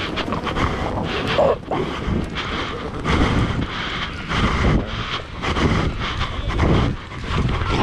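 Wind buffeting an action camera's microphone while a person runs across sand, with the uneven thuds of running footsteps.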